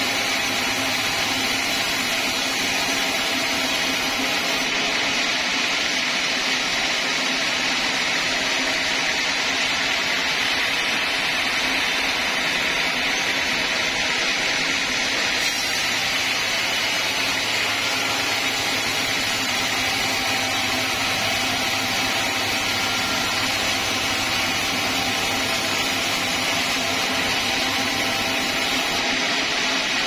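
Band sawmill blade cutting lengthwise through a large teak log: a steady, unbroken sawing noise of blade in wood.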